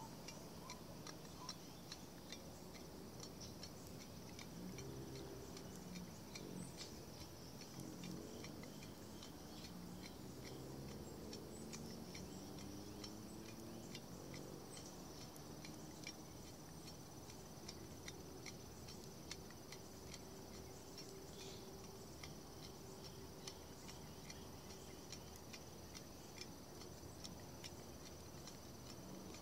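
Faint, irregular small clicks and ticks over a steady high-pitched whine. A low wavering hum comes and goes in the middle.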